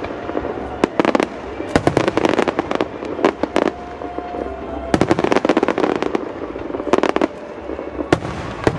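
Aerial fireworks shells bursting in rapid volleys of sharp bangs, several clusters of reports with short lulls between them.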